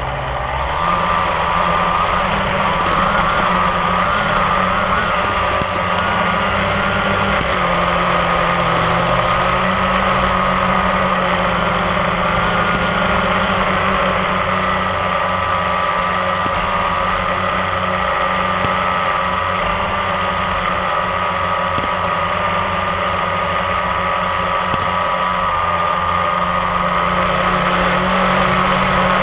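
Quadcopter drone's motors and propellers humming steadily, the pitch wavering slightly as it hovers.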